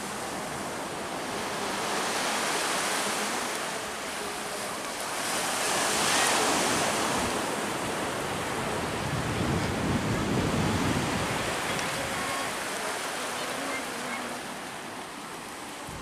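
Surf washing onto the beach: a steady rush of waves that swells and eases over several seconds.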